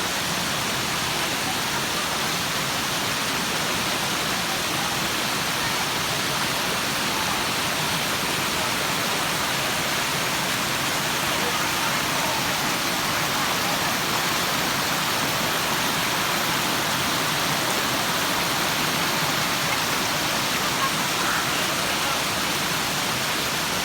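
Waterfall: falling water making a steady, even rush that fills every pitch from low to high.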